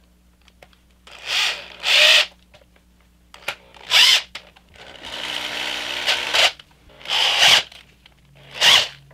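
Socket ratchet wrench tightening the hex-head screws of a caster wheel's mounting plate into wood: short bursts of ratcheting, six in all, the one about five seconds in lasting longer.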